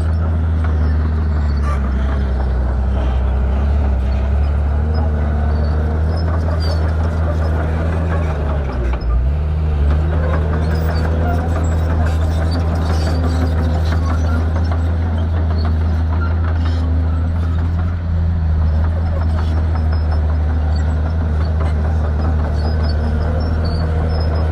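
Shantui bulldozer's diesel engine running steadily at working revs, with a brief dip in pitch about nine seconds in.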